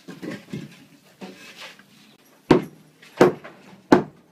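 Softer scraping and handling sounds, then three sharp knocks about two-thirds of a second apart.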